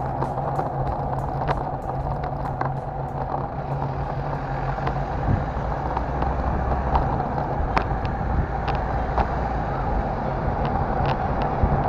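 City street traffic: motor vehicle engines running steadily, with a low engine hum that fades about halfway through and scattered light clicks.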